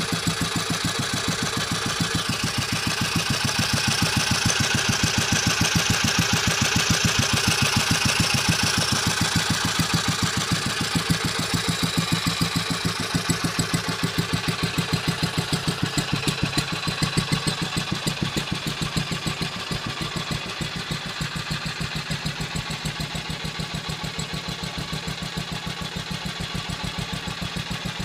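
1947 Wolseley WD II single-cylinder stationary engine running steadily at idle, an even train of firing beats. It eases a little quieter partway through and settles.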